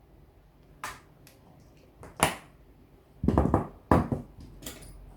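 Scattered sharp clicks and knocks of small reel parts and a tool being handled while the bearing and bushing are worked out of a Shimano Stradic spinning reel's handle. The clicks come about five times, bunched together from about three seconds in.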